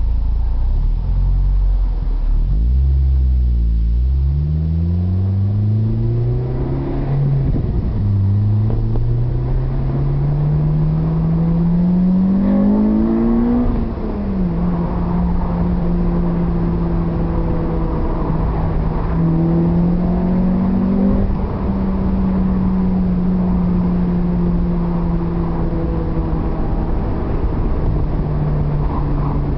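2006 Acura RSX Type-S's four-cylinder engine through an aftermarket PowerGetter exhaust, accelerating with the pitch climbing and dropping at each upshift, about a quarter and half way in. It then cruises at a steady note, with a short rise and drop in the middle of that stretch.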